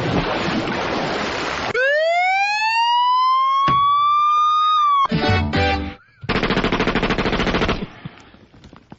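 A collage of sound effects in a comedy radio mix. It opens with a burst of noise, then a siren-like tone rises steadily for about three seconds. A quick stutter follows, then a fast buzzing rattle.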